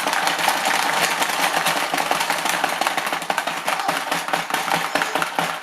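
Rapid, continuous plastic clacking and rattling of a Hungry Hungry Hippos game: hippo levers pressed over and over, the hippos' jaws snapping and marbles rattling on the plastic board.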